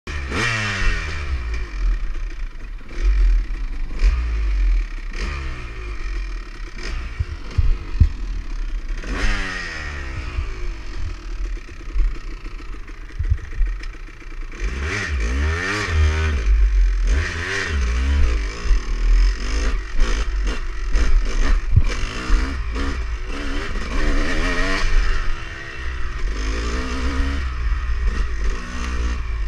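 Dirt bike engine revving up and dropping back again and again as the throttle opens and closes over the trail, with scattered clattering knocks from the bike over rough ground.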